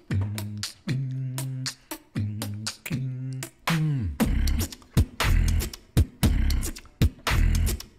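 Solo beatboxing. Held, buzzing bass notes sit under quick clicking hi-hats, then a bass note glides downward about four seconds in. After that comes a steady beat of deep kick-like bass hits with snares and hi-hats.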